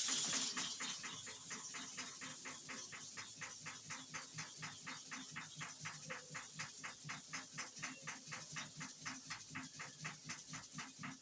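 A hair clipper blade rubbed back and forth on a flat sharpening stone wet with kerosene: an even, rhythmic scraping of about four strokes a second, honing the blade's cutting face.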